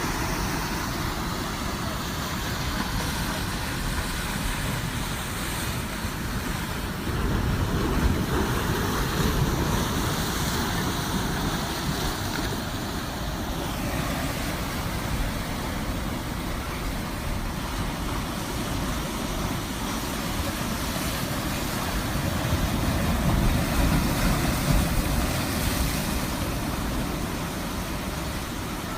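Ocean surf: waves breaking and washing in as a steady rush, swelling louder about seven seconds in and again near the end.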